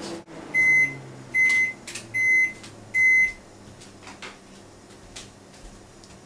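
Panasonic microwave oven beeping four times, evenly spaced, with a low hum under the first beeps: the end-of-cycle signal that the heating is done.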